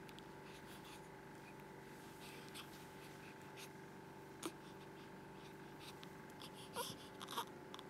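Near-quiet room with faint rustling as a newborn baby moves about, and a few brief squeaky vocal sounds from the baby near the end.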